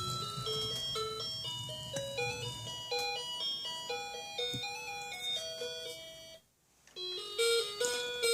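Background music: a bright, tinkly electronic melody of single notes in a chime-like tune. It breaks off briefly about six and a half seconds in, then carries on.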